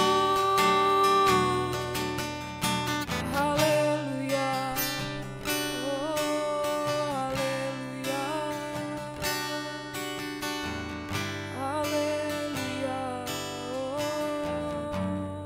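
A woman singing a worship song with long held notes, accompanied by a strummed acoustic guitar.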